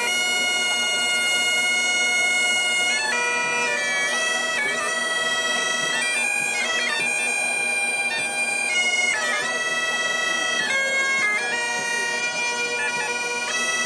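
Bagpipes playing a tune in long held notes, with quick ornamental flourishes between the notes.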